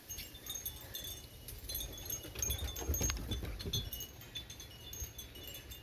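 Wind chimes tinkling irregularly, many short clear high notes, over a steady low rumble.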